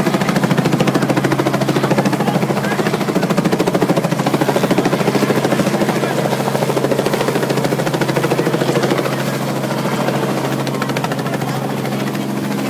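Light two-blade helicopter flying low overhead: the rapid, even beat of the main rotor over a steady engine and turbine hum. It grows slightly quieter about nine seconds in.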